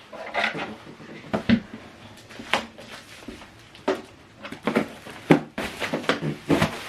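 Handling noises from unboxing: a run of short knocks, taps and rustles as the packed subwoofer and boxes are moved about.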